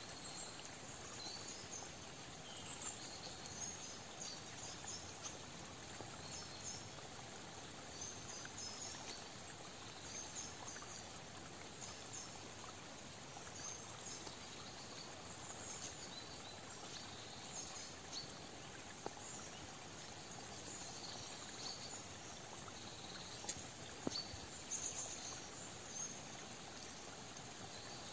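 Autumn woodland ambience: a soft steady hiss with small birds giving short high chirps and calls throughout, and a few sharp ticks about three-quarters of the way through.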